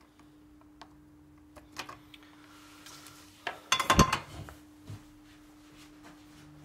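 A steady low hum with a few light clicks, then about four seconds in a short, loud metallic clatter as the soldering iron is put down on the workbench.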